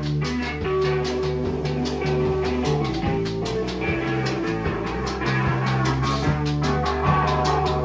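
Rock band playing live with electric guitar, electric bass and drum kit at a steady, full level.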